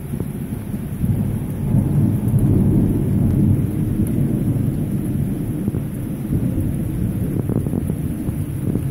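Rolling thunder rumbling low and long, building about a second in, over the steady hiss of heavy rain.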